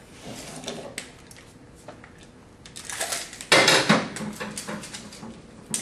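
Steel tape measure extended and held up against a bent EMT conduit stub: metallic clicks and rattling of the blade, with a louder burst of clattering about three and a half seconds in, then a few lighter clicks.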